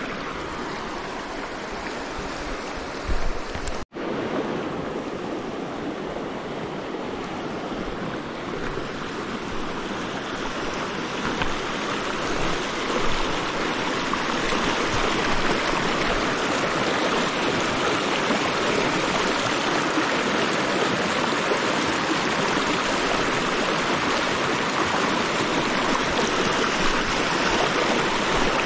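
River water rushing over rocks in a shallow rapid: a steady rush that grows louder through the first half and then holds, with a momentary break about four seconds in.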